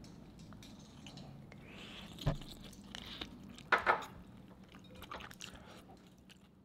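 Soft wet sounds of kalguksu noodles being lifted out of broth in a ceramic bowl, broth dripping and splashing back, with one light knock about two seconds in.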